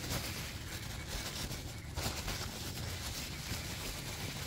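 Soft white paper wrapping rustling and crinkling as hands pull it off shipped succulent cuttings.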